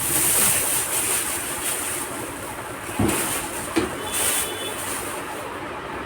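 Handling noise from a desktop PC cabinet being opened and moved: rustling, with a thump about three seconds in and a click shortly after.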